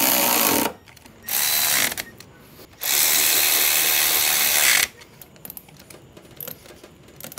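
Cordless electric ratchet running in three bursts as it tightens engine-mount bolts; the last burst, about three seconds in, is the longest. Faint clicks of the tool being handled follow.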